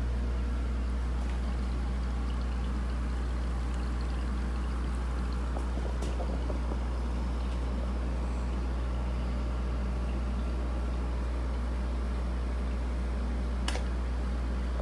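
Aquarium filter running: water pouring and trickling steadily into the tank over a constant low motor hum. A faint click about halfway and a sharper one near the end.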